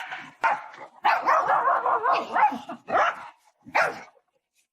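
A dog vocalizing in a string of short pitched barks, with a longer stretch of wavering, whine-like calls about a second in.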